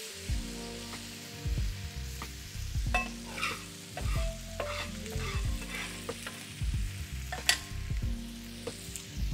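Thick steaks sizzling as they sear on a stovetop griddle, with knocks and clicks of metal tongs and a spatula against the meat and griddle; one sharp click near the end is the loudest.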